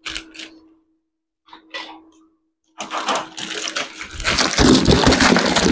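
Polythene wrapping being pulled and crumpled off a plastic spin-mop bucket: a few soft rustles, then from about three seconds in a loud, continuous crinkling crackle.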